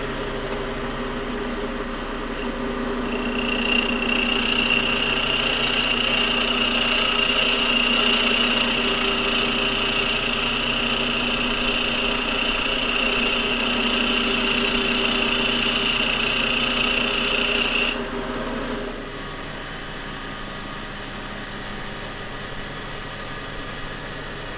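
Bench grinder motor running while a 3/8-inch tool bit is held against the wheel and ground, a steady high-pitched grinding from about three seconds in, sharpening the cutting edge. The grinding stops abruptly about three-quarters of the way through, leaving a quieter steady hum.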